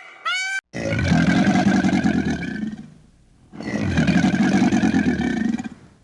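A large animal gives two long, rough, low calls of about two seconds each, with a short pause between. In the first half second, a short high arched call from another clip is cut off.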